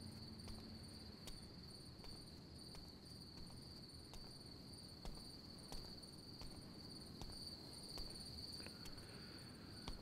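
Crickets chirping, faint and steady: a continuous high trill with a quicker pulsing chirp above it.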